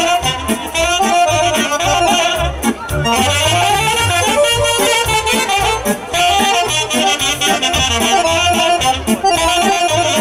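Romanian folk band playing an instrumental break between sung verses: accordion leading the melody with saxophones, over drums and keyboard keeping a steady dance beat.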